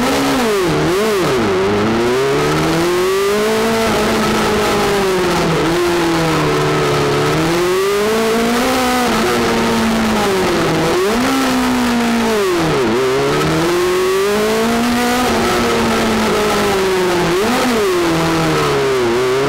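Honda 600 engine of a tubular-frame prototype racing car, heard from inside the cockpit, revving hard. Its pitch climbs and falls again and again, with several sharp drops as the driver lifts off and shifts.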